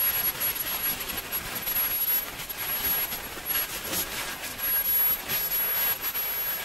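SWIWIN 300 model jet turbine running on test: a rushing exhaust roar that rises and falls in strength, with a thin, high-pitched whine over it.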